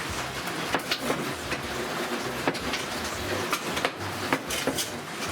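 A wrecked vacuum cleaner still running, making a continuous rough rattle with a low hum and irregular sharp clicks and crackles, with electrical sparking from the broken machine.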